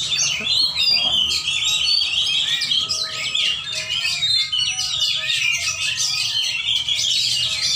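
Several caged oriental magpie-robins (kacer) singing at once: a dense, unbroken stream of overlapping chirps, trills and whistles.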